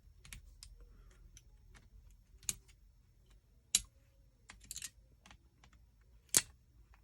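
Sharp clicks and snaps of 18650 lithium cells being pulled out of a Milwaukee 18-volt battery pack's plastic cell holder with cutting pliers. There are light ticks throughout and three louder snaps, the last near the end.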